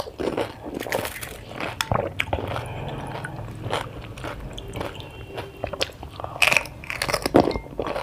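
Crisp panipuri (golgappa) shells being bitten and chewed, a run of irregular crunches.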